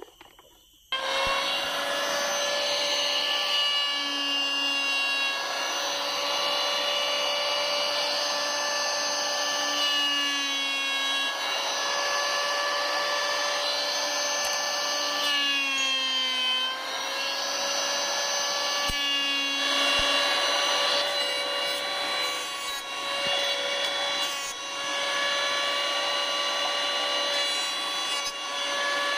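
Maktec MT192 82 mm electric hand planer running and shaving wood: a steady high motor whine over the hiss of the cut, starting abruptly about a second in. The pitch dips briefly under load near the middle.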